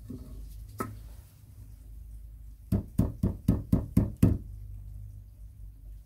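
A paintbrush whose bristles are rock hard with old dried paint, knocked against a wooden box: one knock about a second in, then seven quick knocks at about four a second.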